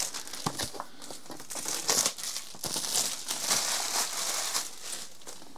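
Packaging crinkling and rustling under hands, with a few sharp clicks, as a new transmitter's box is unwrapped.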